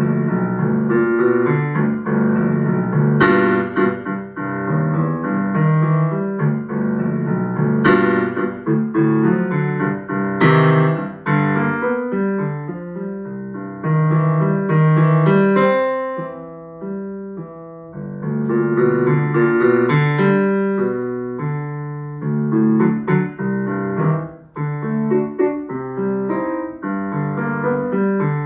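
A boogie-style piano piece played on a digital piano, with a busy bass line under the melody; the playing softens for a couple of seconds past the middle, then picks up again.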